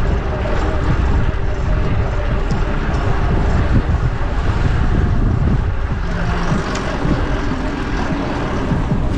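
Wind rushing over an action camera's microphone while riding a bicycle, as a steady low rumble, with motor traffic passing underneath.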